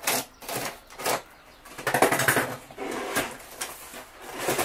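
Packaging of a fishing rod being handled and pulled open, a run of irregular rustling and scraping noises, the loudest cluster about two seconds in.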